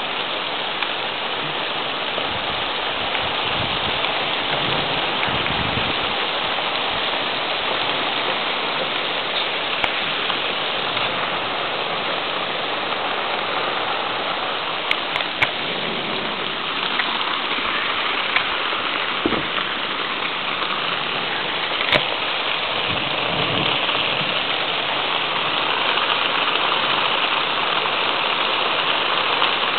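Steady rain falling during a thunderstorm, with a few sharp clicks in the middle.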